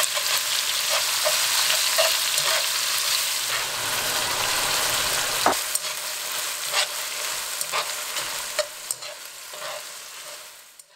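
Lamb slices and scallions sizzling in hot oil in a wok as they are stir-fried with chopsticks, which click against the pan every second or so. The sizzle fades out over the last couple of seconds.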